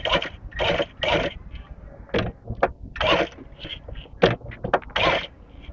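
Sewing machine stitching a collar band in short stop-start runs, about one burst a second.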